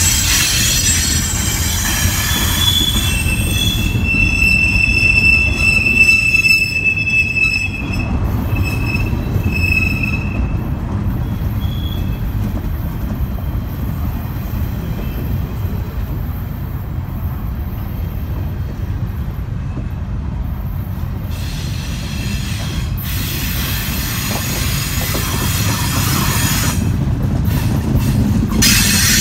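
Double-stack intermodal container train rolling slowly past, a steady low rumble of wheels on rail, with high-pitched wheel squeals during roughly the first ten seconds and a hissing screech building again near the end.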